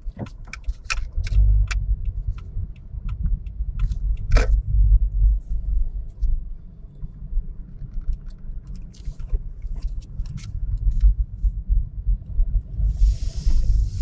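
Low rumble of a car driving slowly, heard from inside the cabin, with scattered light clicks and a short hiss near the end.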